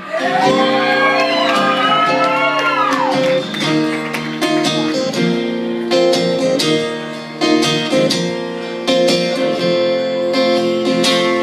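Acoustic guitar playing a song's instrumental intro, strummed chords ringing in a steady rhythm. High gliding tones sweep up and down over the first three seconds.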